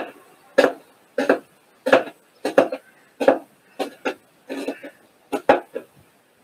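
Kitchen knife chopping vegetables on a cutting board: a steady run of sharp knocks, about one and a half a second, a dozen or so strokes.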